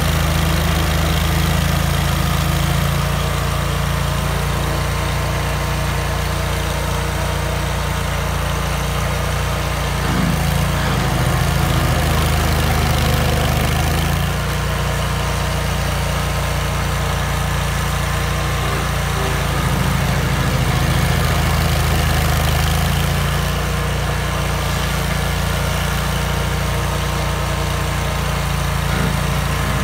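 Vermeer stump grinder's engine running steadily at working speed while its cutter wheel grinds through a stump and soil, a dense hiss of cutting over the engine note. The engine pitch shifts briefly under load about ten seconds in and again near the end.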